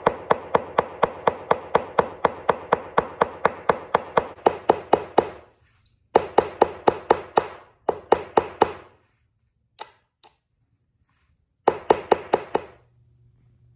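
Claw hammer lightly tapping small black fittings into pre-drilled holes in a white laminated cabinet panel, in quick even strikes about four a second, each ringing briefly. A long run of taps stops about five and a half seconds in, then three shorter runs follow after brief pauses.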